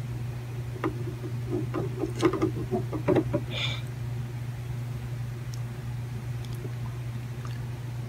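Steady low electrical hum, with a run of small clicks and taps over a couple of seconds as the soldering iron is lifted off the LVDS connector's pad and set aside, followed by a brief hiss.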